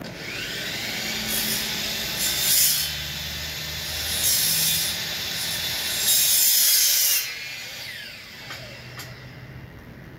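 Ratchet wrench worked on bolts of a bare car engine block, in four spells of rapid clicking and grinding that stop about seven seconds in.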